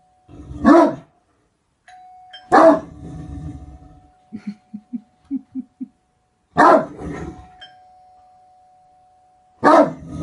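Great Dane barking: four loud, deep single barks a few seconds apart, with a quick run of six short low huffs between the second and third. A thin steady tone hangs on after some of the barks.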